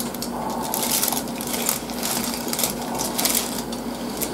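Crisp breadcrumb coating of a large deep-fried fry crunching as it is bitten and chewed, a dense run of crackles and snaps.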